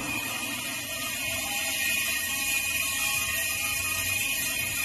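Refrigerant gas hissing steadily as it is let through the charging hose and valve into a refrigerator's sealed system, with the low hum of the running compressor underneath; it is being charged a little at a time toward about 0.7 on the gauge.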